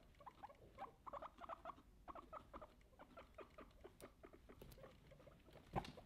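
Guinea pigs making faint, rapid little squeaks and chirps, with a sharper knock near the end.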